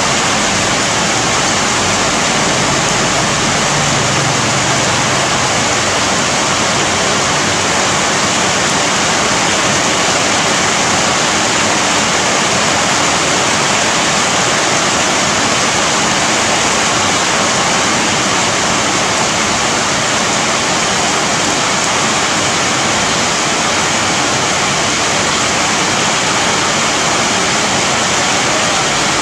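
Heavy rain pouring steadily onto leafy trees, a dense, even hiss with no let-up.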